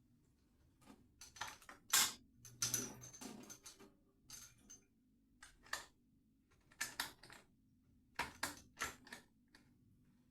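Small metal tools and fittings clicking and clinking as they are handled, in irregular clusters of sharp taps, some with a brief high ring.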